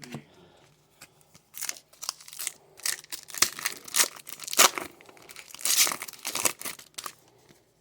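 Trading card pack wrapper being torn open and crinkled by hand: a run of sharp crackles starting about a second and a half in and stopping near the end.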